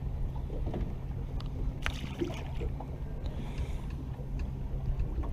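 A small fishing boat on the water: a steady low motor hum with water and wind noise, and a few light clicks and knocks, the sharpest about two seconds in.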